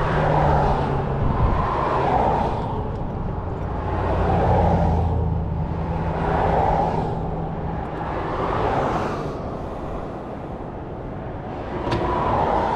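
Passing road traffic: a run of vehicles whose tyre and engine noise swells and fades one after another, about every two seconds, over a steady low rumble.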